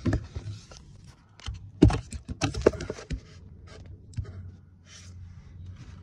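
Irregular clicks, taps and rustling as hands and a phone brush and knock against plastic trim and parts under a car's dashboard, with a couple of sharper knocks about two seconds in.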